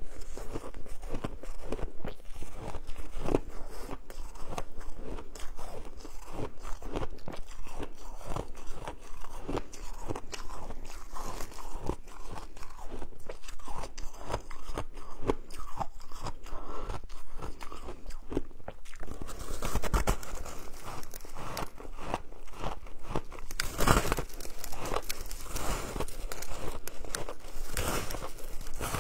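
Close, continuous crunching and chewing of a block of colourful shaved ice, with many crackling bites packed together. The crunching grows sharper about two-thirds of the way through.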